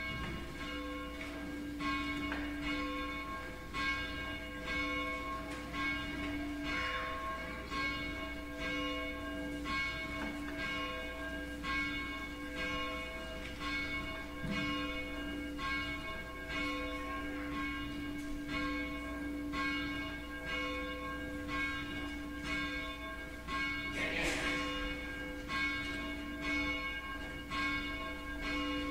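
A church bell tolling steadily, about one stroke a second, its deep ringing carrying on between strokes.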